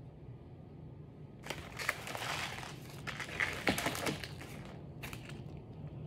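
Plastic bubble wrap crinkling and rustling as it is handled and pulled open. There are about three seconds of dense crinkling with a few sharp crackles, then a short second rustle near the end.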